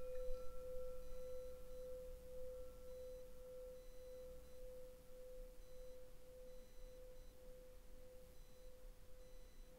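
A single struck, bell-like tone rings out at one steady pitch with a fainter higher overtone, slowly fading away.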